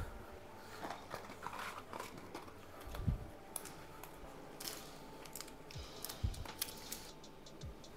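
Quiet handling noises: scattered small clicks and rustles, with a few soft low thumps.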